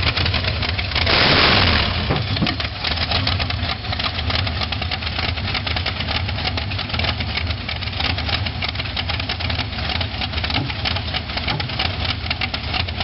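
Hot rod engine idling with a fast, steady firing beat, and a brief louder rush of noise about a second in.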